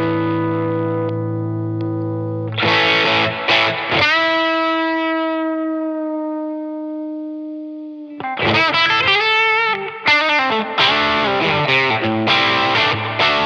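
Telecaster-style electric guitar played through an LPD CLE-304 optical compressor and EQ pedal. A chord rings out, a new chord is struck about two and a half seconds in and left to sustain and fade slowly, then a busier passage of picked notes and chords starts about eight seconds in.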